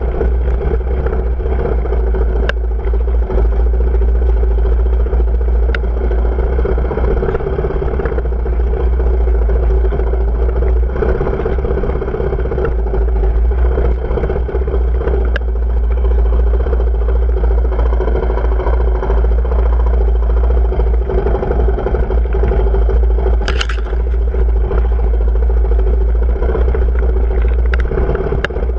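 Off-road motorcycle engine running at a steady pitch while riding a rough trail, over a heavy low rumble, with a few sharp clicks along the way.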